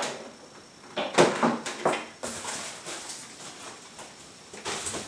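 Cardboard packaging being handled: squeaky scraping and rubbing of the carton, loudest about a second in, with a short rustle near the end.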